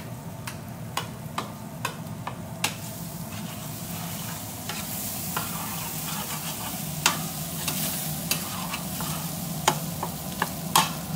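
Bacon and boudin sausage sizzling in a stainless steel pan while a metal utensil stirs them, clicking and scraping against the pan many times. The sizzle grows louder about halfway through.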